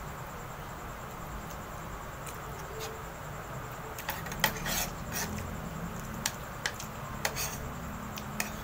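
Metal spoon and fork clinking and scraping against a plate while eating rice, with a string of sharp clicks in the second half.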